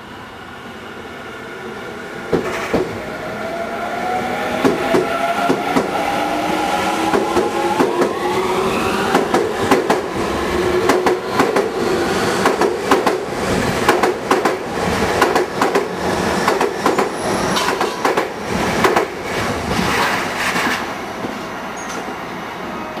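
Tobu 50070 series electric commuter train pulling away and accelerating past: the traction motor whine climbs in pitch in several tones over the first several seconds, then a fast run of wheel clacks over rail joints as the cars go by, easing off near the end.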